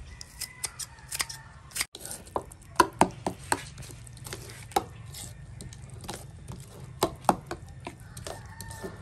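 A few scissor snips cutting lemongrass into a ceramic bowl, then a spoon clicking and scraping against the bowl in an irregular run as thick fermented rice paste (cơm mẻ) with lemongrass and chili is stirred and mashed.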